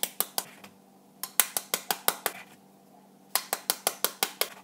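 Eggs tapped repeatedly to crack their shells: quick runs of sharp clicking taps, about seven a second, one run per egg, with short pauses between runs.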